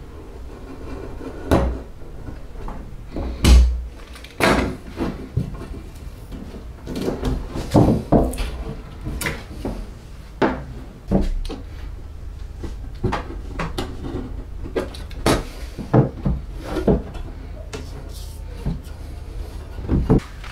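Irregular knocks, taps and clatter of a rusty steel lawn mower handle tube and small metal parts being handled and set down on a wooden workbench, with a utility knife cutting at the handle's old rubber grip.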